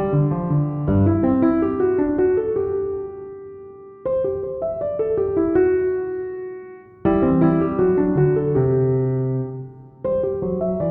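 Background piano music: gentle phrases of notes that die away and begin again about every three seconds.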